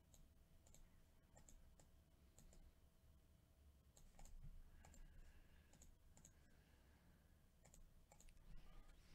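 Near silence with faint, irregular computer mouse clicks, some in quick pairs.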